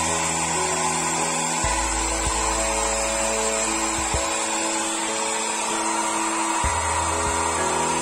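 Handheld hair dryer blowing steadily, its motor and airflow making an even whine, with background music of held notes playing over it.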